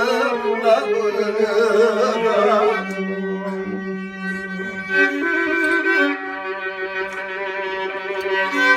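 Turkish folk song: a male voice singing with a wavering vibrato in the first few seconds, then an instrumental interlude of steady held notes between verses.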